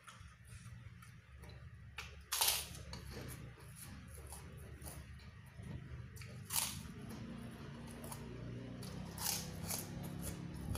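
Big bites into a crisp white kerupuk (tapioca cracker), crunching three times, with chewing crackles in between over a steady low hum.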